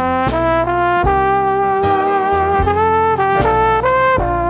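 Background music led by brass, playing held notes that change every second or so over a bass line.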